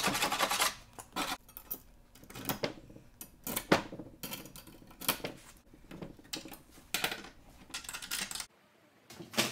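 Steel strap hinges and bolts being handled on a wooden worktable. A plastic bag of hardware rustles at first, then scattered metal clinks and knocks follow. The sound cuts off suddenly near the end.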